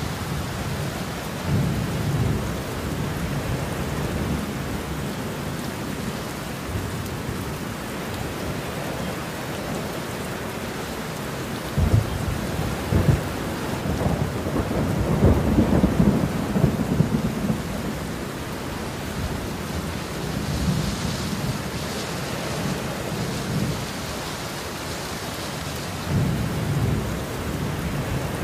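Heavy rain falling steadily, with thunder rumbling several times. About twelve seconds in, a sharp crack of thunder opens the loudest peal, which rolls on for several seconds.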